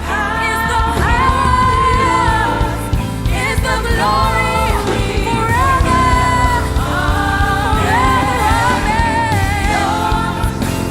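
Live praise and worship music: sung melody with long held notes and vibrato over a band with steady bass.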